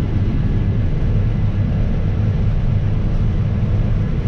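Case IH 9250 Axial-Flow combine running steadily while harvesting wheat, an even low rumble heard from inside the cab.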